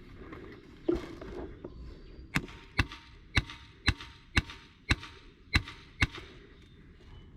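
Airsoft gun firing eight single shots, sharp cracks about two a second, after a single thump about a second in.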